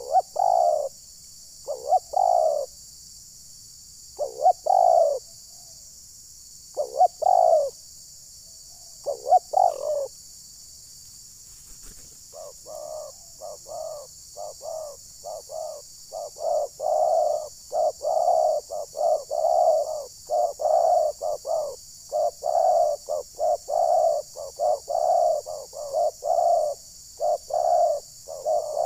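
Spotted doves cooing, the decoy bird's call answered by wild doves. Single coo phrases come a couple of seconds apart at first; from about twelve seconds in they turn into a dense, rapid run of coos. A steady high hiss sits underneath.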